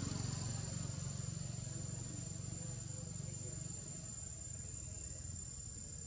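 Steady, high-pitched drone of insects, one unbroken tone, over a low rumble that slowly eases off.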